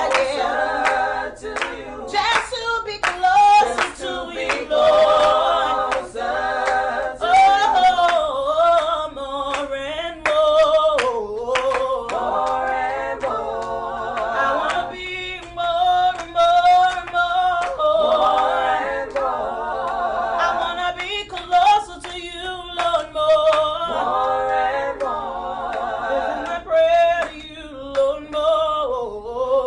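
A small mixed group of male and female voices singing a cappella, in harmony, with sliding runs, over irregular hand claps.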